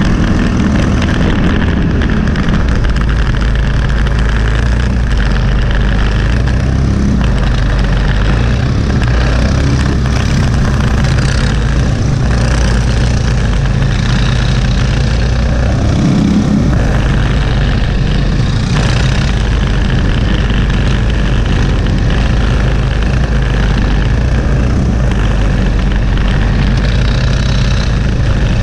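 Briggs & Stratton LO206 four-stroke single-cylinder kart engine running at a fairly steady part throttle, heard from onboard the kart.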